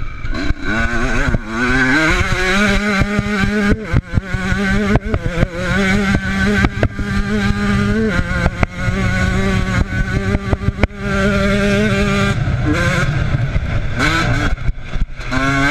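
Enduro motorcycle engine heard from the bike's onboard camera, revving up through the gears in rising sweeps, then held at steady high revs for several seconds at a time with a couple of brief drops, and climbing again in quick rising sweeps near the end. Short knocks and rattles from the bike running over rough ground come through the whole time.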